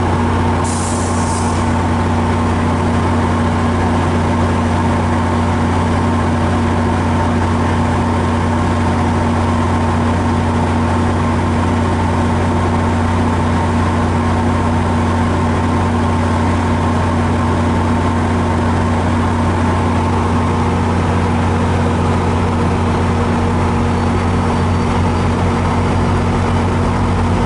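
MARC diesel passenger locomotive idling while standing at the platform: a steady, loud low drone with an even hum above it. A short high hiss comes about a second in.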